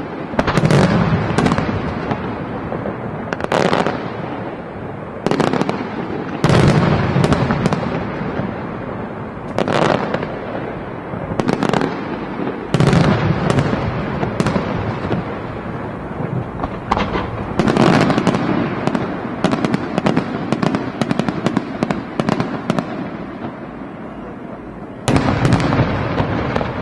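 Aerial firework shells bursting one after another, each a sharp bang trailing off into an echo. A quick run of rapid pops comes in the middle, and a big burst near the end.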